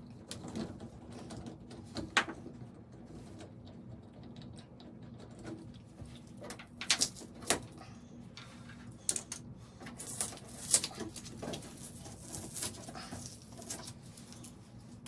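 Scattered light clicks and taps as chrome and plastic shower-faucet handle parts are unscrewed and pulled off the valve stems: a handle, its trim and the little rings. The sharpest clicks fall a little past halfway and again about two thirds in, over a low steady hum.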